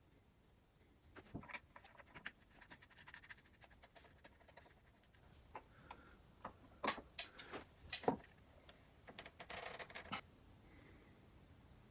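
Faint clicks, taps and knocks of an Allen key and bike pedals being handled during pedal removal and fitting. The sharpest clicks come about seven and eight seconds in, and a short scraping follows near ten seconds in.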